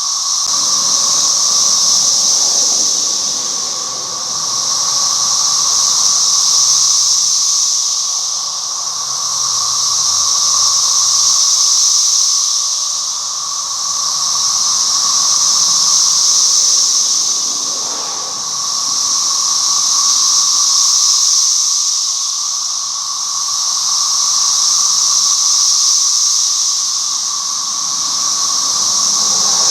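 Chorus of many cicadas in a tree: a loud, high buzzing that swells and fades about every four to five seconds, over a steady lower drone.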